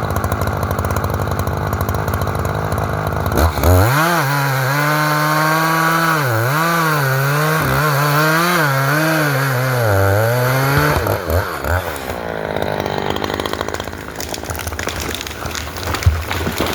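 Echo chainsaw cutting timber at full throttle: the engine note dips and recovers again and again as the chain loads up in the cut. About eleven seconds in the throttle comes off and the note falls away, leaving rougher, noisier sound with a sharp knock near the end.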